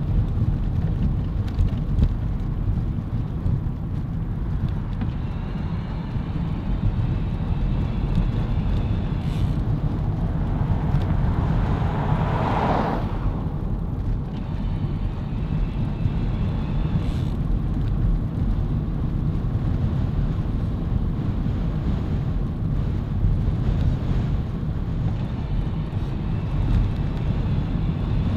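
Steady wind rush and road rumble picked up by a camera on a moving bicycle on a rough chip-seal road, with a brief swell of louder hiss about twelve seconds in.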